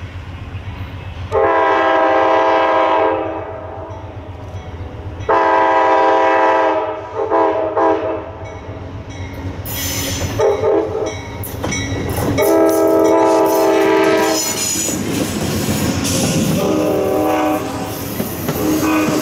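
Amtrak diesel locomotive sounding its horn as it approaches: two long blasts, a short one, then a long one, the grade-crossing signal, with a weaker blast after. In the last few seconds the passenger train passes close by, its wheels rumbling and clattering over the rails.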